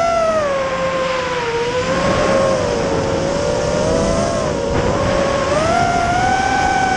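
FPV quadcopter's motors and propellers whining, recorded by its onboard camera under a rush of wind. The pitch follows the throttle: it falls in the first two seconds, wavers low, then climbs about five and a half seconds in and stays high.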